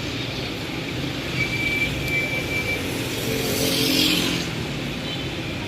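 Urban street traffic on a rainy day: a steady wash of road noise, with a vehicle passing close by about three to four seconds in.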